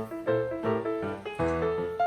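Background music: piano playing a lively melody over bass notes.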